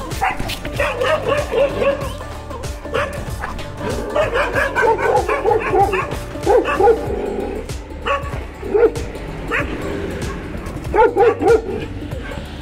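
Dogs barking in short, sharp barks and yips that come in quick runs of three or four, a stray dog squaring up to a leashed dog.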